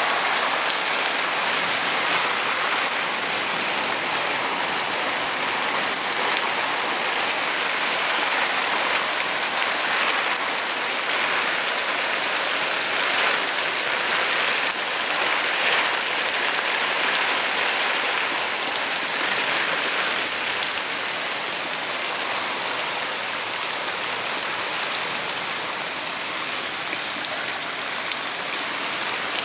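Heavy rain pouring down in a downpour: a dense, steady hiss of rainfall, easing a little after about twenty seconds.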